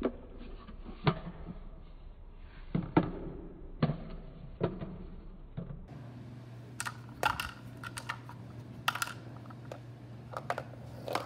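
Irregular light clicks and knocks of a plastic toy truck being handled and bumped on a hard tiled floor.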